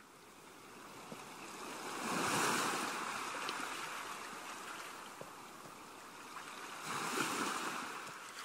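Calm seashore sound effect: waves washing in on a shore, two slow swells of surf about five seconds apart, each rising and then falling away.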